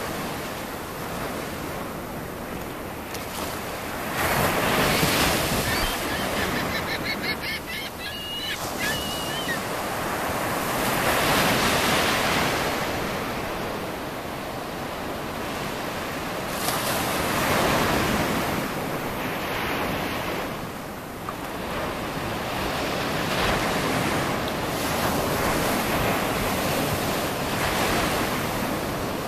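Ocean surf breaking and washing up the sand, swelling and easing every several seconds, with wind on the microphone. A brief faint high-pitched call sounds about seven to nine seconds in.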